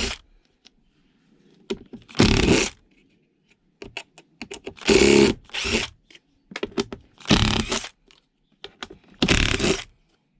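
Cordless drill-driver backing screws out of a wooden packing box in short bursts about every two seconds, with small clicks and handling knocks in between.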